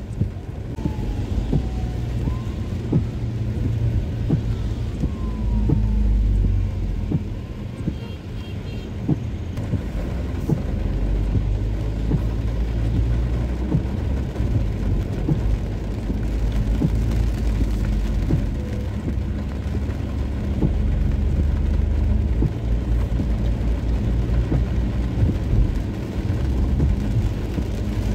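Rain drumming on a moving car, many raindrops ticking irregularly on the glass and body over the steady low rumble of the car driving on a wet road, heard from inside the cabin.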